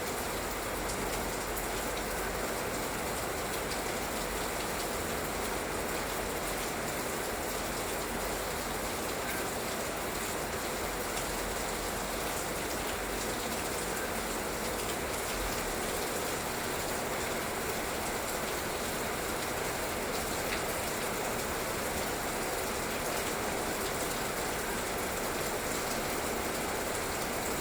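Light rain falling steadily: an even hiss of many small drops, with scattered sharper drop ticks.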